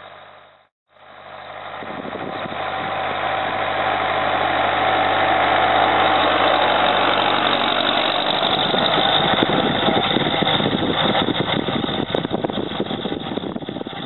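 Tractor engine running under load while pulling a seed drill. It grows louder as the tractor comes close and passes, then eases off as it moves away. The sound cuts out briefly about a second in.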